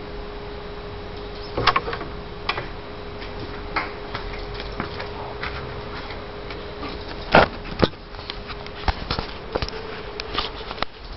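Steady whistling tone from a factory across the river, with scattered clicks and knocks, the loudest about seven seconds in.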